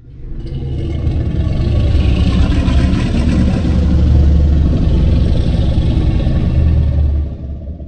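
Monster-movie sound effect: a loud, deep rumble that swells up from silence within about a second, holds steady, and fades away near the end.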